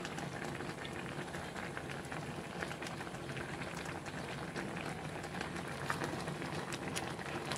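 Pot of clear spinach soup boiling hard: a steady bubbling with many small irregular pops.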